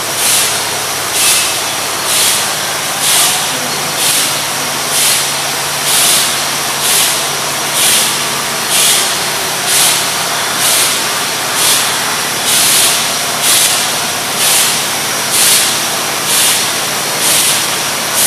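Beer bottling line with a rotary bottle filler running: steady machine noise broken by a sharp hiss about once a second, in an even rhythm, over a low hum.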